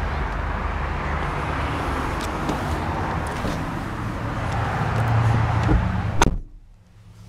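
1999 Mercedes-Benz E320 front passenger door shut from inside with one solid thud about six seconds in. The steady outside noise before it cuts off suddenly, leaving the hush of the closed cabin.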